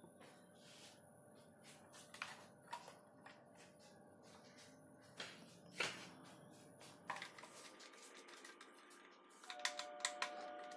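Faint, scattered clicks and taps of hands handling a plastic Xbox 360 wired controller and its cable, ending in a quick cluster of sharper clicks as a screwdriver tip is set into the screws on its back case.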